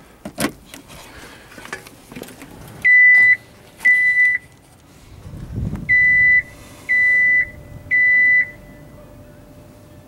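Five short, high-pitched electronic beeps from a John Deere skid steer's cab alarm, two and then three about a second apart, as the machine is switched on ahead of a cold start. A faint steady hum starts just before the last three beeps, with a few clicks of handling in the cab near the start.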